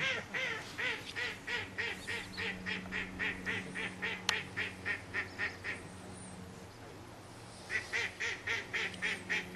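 Duck quacking in a rapid, even run of calls, about four a second. It breaks off about six seconds in and starts again near the end.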